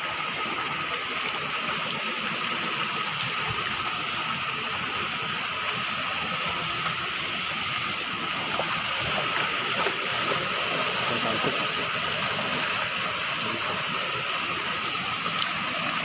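Small waterfall pouring into a rocky pool: a steady, even rush of falling water.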